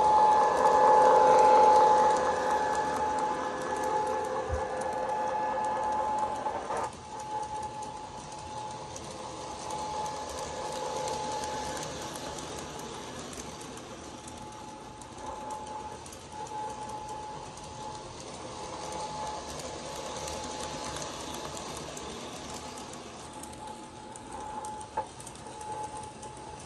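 Toy electric train with a Santa Fe diesel locomotive running on three-rail track: its horn sounds at the start and cuts off about seven seconds in. After that, the steady whir of the motor and the clatter of its wheels on the track carry on.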